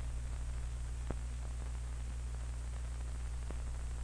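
Steady low hum and hiss of a 16mm film soundtrack between narrated passages, with a couple of faint clicks.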